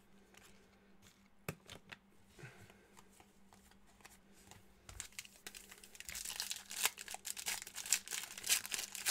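Trading cards being handled and slid against each other with a few soft clicks. After about five seconds a foil trading-card pack starts crinkling loudly as it is torn open.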